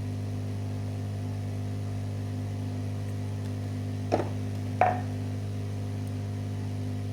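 Steady electrical hum, with two short taps about four and five seconds in.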